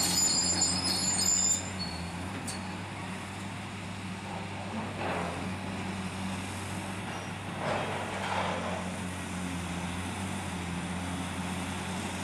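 Diesel engines of demolition excavators running with a steady low hum. A high two-tone metallic screech sounds over the first second and a half, and a few short noisy swells come later.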